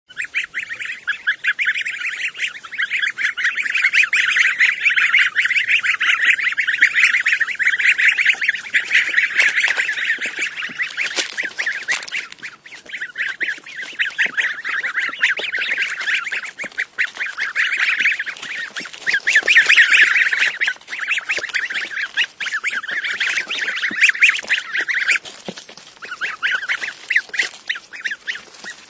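A group of goslings peeping: many rapid, high cheeps overlapping in a dense chorus, easing briefly about halfway through and again near the end.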